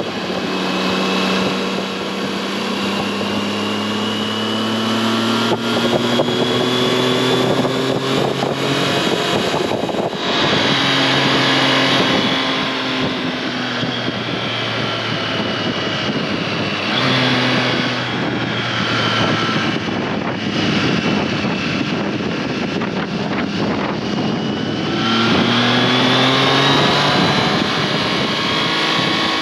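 Triumph Tiger Sport 660's three-cylinder engine and exhaust under way, the note climbing in long pulls as it accelerates and dropping sharply about ten, seventeen and twenty-five seconds in before rising again.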